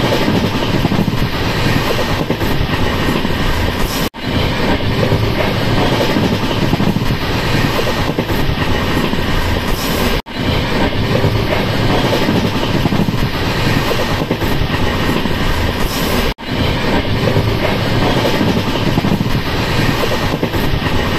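Running noise of a moving train, heard from inside the carriage: a steady, loud rumble of wheels on the rails. It cuts out for an instant three times.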